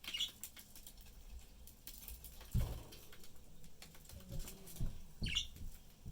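Pet budgies eating, with scattered small clicks and taps, and two short high chirps: one right at the start and one about five seconds in. A few dull thumps, the loudest about two and a half seconds in.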